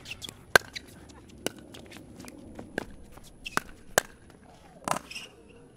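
Pickleball paddles striking a plastic ball in a doubles rally: a string of sharp pops roughly a second apart, with footsteps on the hard court between them.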